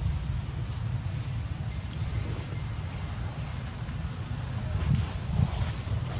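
Insects droning steadily in one unbroken high-pitched tone, over a low rumble.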